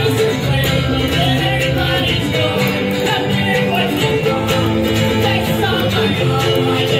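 Acoustic string band playing live: strummed acoustic guitar, mandolin and upright bass, with a man singing lead into the microphone.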